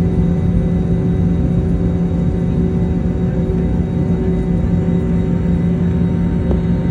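Airbus A321neo jet engines heard from inside the passenger cabin: a steady rumble with a constant hum and a faint high whine, holding at one level.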